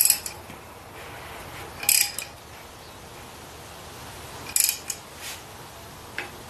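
Socket ratchet on the crankshaft bolt of a Ford 460 big-block clicking in short bursts about every two seconds as the crank is turned backwards by hand toward a piston stop.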